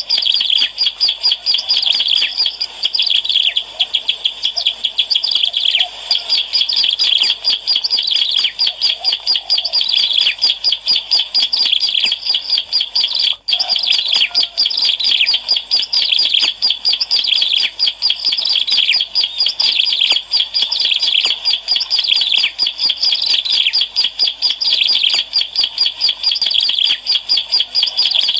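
Ciblek alang-alang, a prinia, singing nonstop: a rapid, unbroken run of high, sharp chirping notes that breaks off only briefly near the middle.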